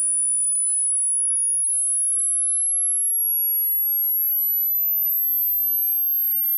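A pure sine test tone, very high-pitched, climbing slowly and steadily in pitch at a constant level: a hearing-test frequency sweep.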